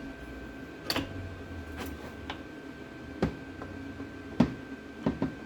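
Irregular metallic clicks and knocks of a socket wrench being worked on a seized front-hub bolt, about seven in all with uneven gaps between them.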